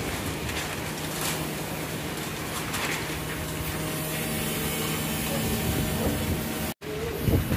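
Typhoon wind blowing steadily, with a few faint bangs from roofing being battered loose by the storm.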